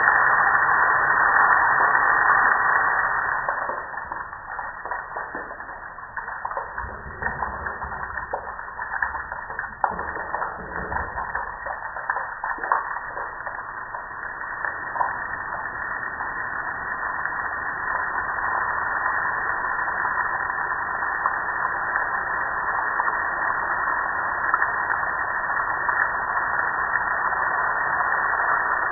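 Water pouring and splashing onto a gas grill's metal lid and running off onto concrete, a steady rushing hiss. It drops quieter a few seconds in, with scattered ticks of drops, and slowly builds back up in the second half.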